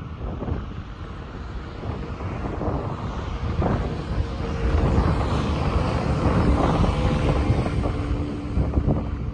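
Wind buffeting the microphone, a gusty low rumble that swells and fades. From about halfway through, a faint steady engine drone sits beneath it.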